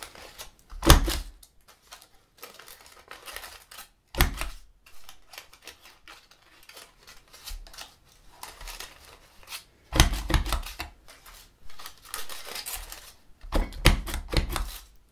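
A handheld lever craft punch with a sun motif is pressed through folded aluminium foil lids, giving sharp snapping clacks about a second in, after about four seconds, around ten seconds and near the end. Between them the foil crinkles as it is repositioned. Punching foil in this way is done to sharpen the dull punch's cutting edges.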